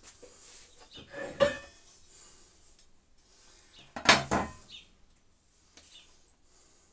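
Metal angle frame knocking and clattering against a chipboard worktop twice, about a second in and again about four seconds in, each knock followed by a short metallic rattle; the second is the louder.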